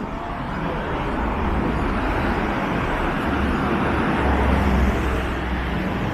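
Street traffic: a motor vehicle passing close by, its tyre and engine noise swelling to a peak with a deep rumble about four to five seconds in, then easing.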